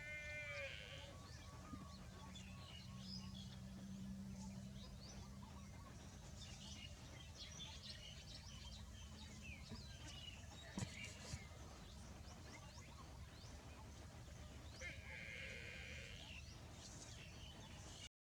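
Buffalo calf calling faintly twice, a short high call right at the start and another about fifteen seconds in, with faint bird chirps in between.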